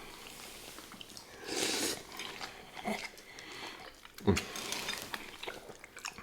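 Close-miked eating sounds from a mouthful of seafood gumbo: chewing and slurping, with scattered small clicks. A single dull knock about four seconds in is likely a spoon or bowl.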